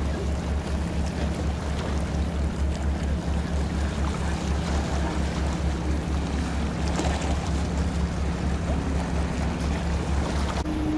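Passenger ship's diesel engine running as the boat passes close by: a low, steady pulsing throb with a hum above it, against wind and water noise.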